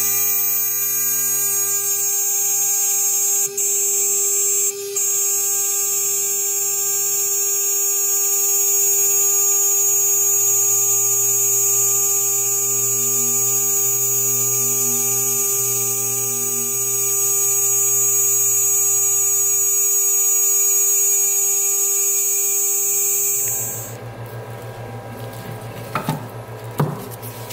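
CNC router spindle running at about 12,000 RPM, its 3 mm carbide endmill milling half-inch polycarbonate: a steady motor whine with a high hiss. The sound cuts off suddenly about 23 seconds in, leaving a low hum and a few knocks.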